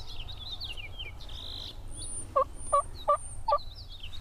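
Turkey calling: four short, loud notes in a quick series about a third of a second apart, starting about halfway in. Songbirds chirp and whistle throughout.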